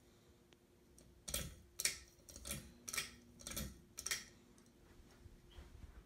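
Harbor Breeze Coastal Creek ceiling fan just switched to medium speed: a run of sharp knocks, about two a second, that fades out after about four seconds, over a faint steady hum.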